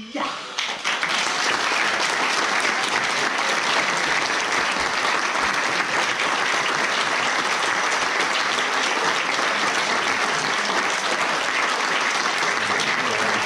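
Audience applauding steadily, the clapping breaking out about half a second in as a shouted haka call dies away.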